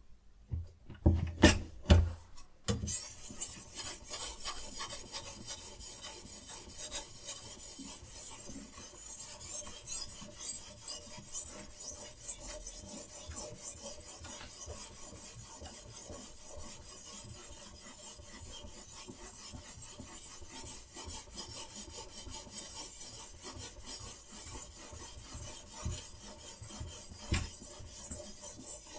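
Knife blade being sharpened on a guided sharpening system's abrasive stone: steady, rapid back-and-forth scraping strokes. It is preceded by a few knocks in the first couple of seconds.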